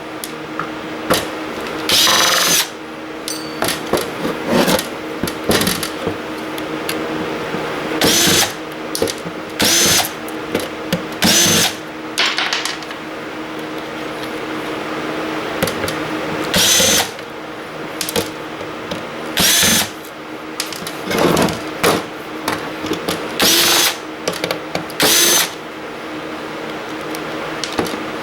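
Cordless drill or driver run in short trigger pulls, about nine brief whirring bursts spaced a few seconds apart, backing screws out of a server power supply. A steady low hum runs underneath.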